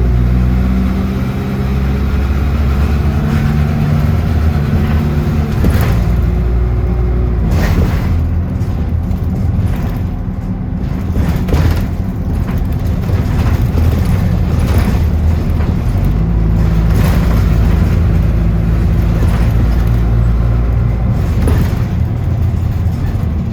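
City bus engine running and road rumble, with the pitch of the engine shifting as it drives, and several sharp knocks and rattles along the way.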